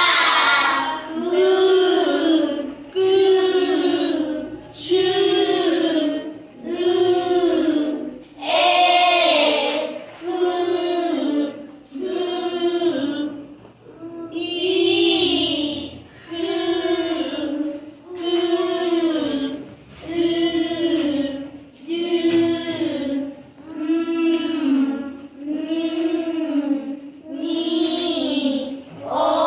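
Group of children chanting the sounds of the alphabet in unison, one drawn-out sung syllable about every second and a half.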